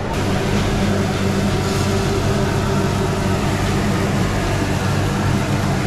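Steady low motor hum under an even hiss, unchanging throughout.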